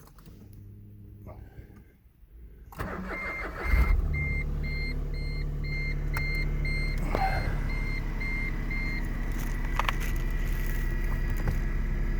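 2013 Smart ForTwo's three-cylinder engine starting about three seconds in, then idling steadily. A dashboard warning chime beeps about twice a second for several seconds after the start.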